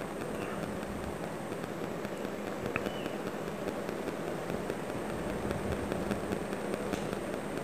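Steady low background hum and rushing noise, with one faint tick about three seconds in.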